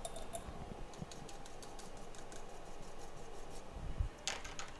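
Faint, irregular quick ticks and crackles from desoldering work with a soldering iron and solder wick on a phone's circuit board, with a soft low thump about four seconds in.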